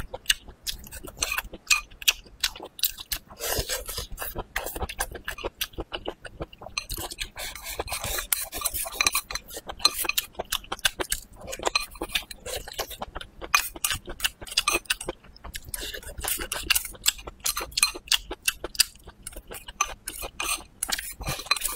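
Close-miked eating: wet chewing and lip smacks on stir-fried bamboo shoots and cured pork, with chopsticks clicking and scraping on a ceramic plate. A dense, uneven run of sharp clicks.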